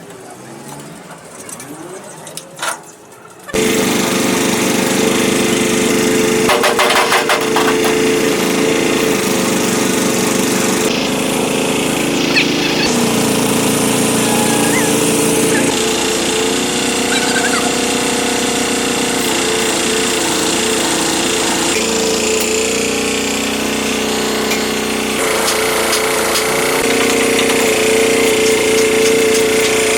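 Tractor engine running loud and rattling, cutting in abruptly about three and a half seconds in and holding steady, its pitch shifting in a few sudden steps.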